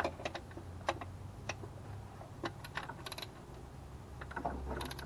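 Scattered clicks and metallic clinks from a socket ratchet working an intake manifold bolt, loosening it a quarter turn, in short irregular spurts.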